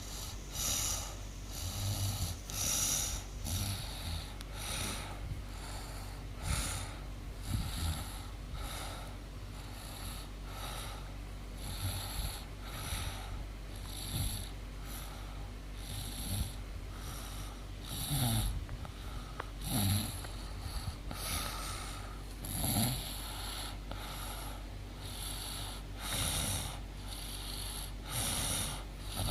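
A woman snoring in her sleep: a string of snores about a second apart.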